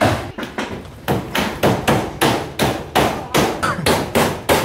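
Hammer driving nails through corrugated galvanised iron roofing sheets, rapid even strikes about three to four a second, each with a short metallic ring: the tin sheets being nailed down onto the roof frame.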